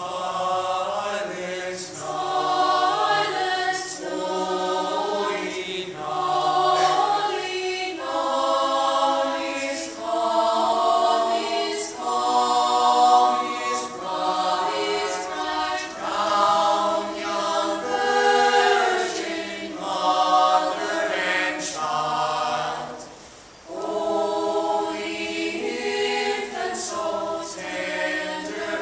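Mixed choir singing a cappella in several parts, sustained chords in phrases of a few seconds. There is a short pause for breath about two-thirds of the way through, then the singing resumes.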